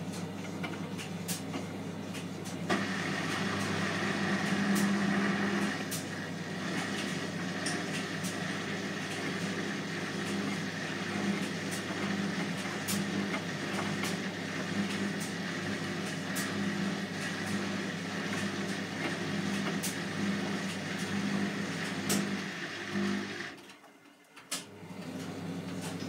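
Hotpoint front-loading washing machine on its wash cycle: a steady motor hum with water sloshing and light knocks as the drum tumbles a wet towel. The motor picks up about three seconds in, and near the end it stops for about a second before the hum returns.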